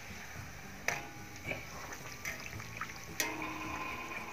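Puri sizzling in hot deep-frying oil in a steel kadai, with sharp metallic clicks of a wire skimmer against the pan about a second in and again near three seconds, plus a few lighter ticks.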